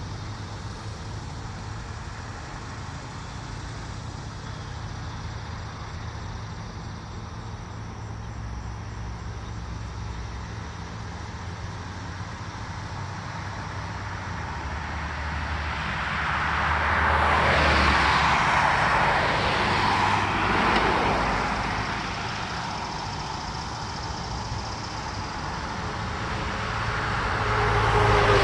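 Road traffic passing on a roadside, over a steady low rumble. One vehicle passes loudly about two-thirds of the way in, and a second vehicle, a box truck, approaches near the end.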